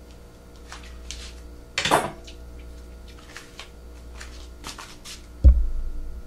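Kitchen handling sounds: a dinner plate is set down on the counter with a sharp clatter about two seconds in, followed by scattered light clicks and knocks over a low steady hum. Near the end a heavy thump comes as the camera is handled up close.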